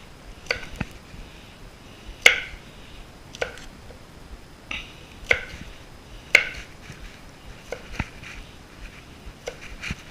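Kitchen knife chopping on a cutting board: about ten separate sharp knocks at an uneven pace, two of them louder than the rest.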